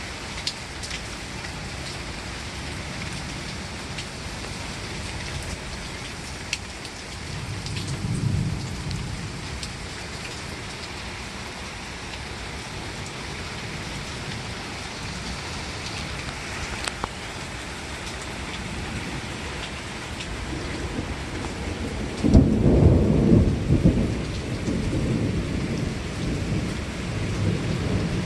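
Steady heavy rain with scattered drops tapping close by. A low roll of thunder swells briefly about eight seconds in. About three-quarters of the way through a loud thunderclap breaks suddenly and rumbles on to the end.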